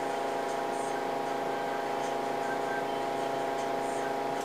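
Steady hum and hiss of background room and recording noise, unchanging throughout, with no distinct sounds in it.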